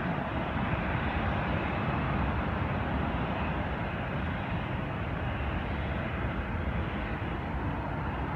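Steady rush of a Boeing 737's jet engines at a distance as the airliner pulls away from its gate, an even noise with no distinct events.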